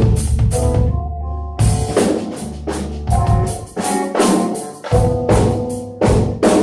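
A drum kit being played in a sound check: bass drum, toms and crash cymbals struck about every half second in loose fills, with the toms ringing on after each hit.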